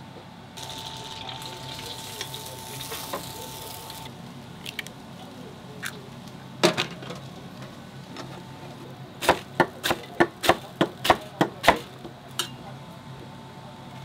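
Restaurant kitchen work: a hiss lasts a few seconds, then a single sharp knock, then a quick run of about nine sharp knocks of a utensil against cookware, roughly four a second.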